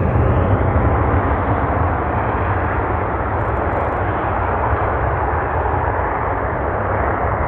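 F-16 fighter's Pratt & Whitney F100 turbofan at full afterburner on takeoff: a loud, deep jet roar that swells up at the start and then holds steady.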